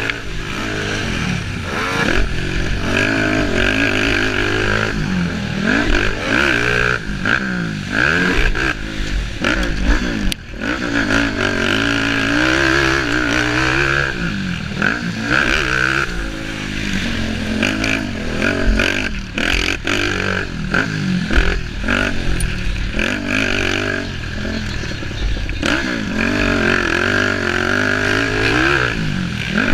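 Racing vehicle engine running hard, its pitch rising and falling over and over every few seconds as it revs up and comes off the throttle. There is a short dip in level about ten seconds in.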